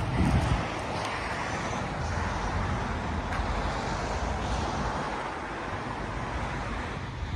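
Steady outdoor street noise of traffic, with wind on the microphone briefly just after the start.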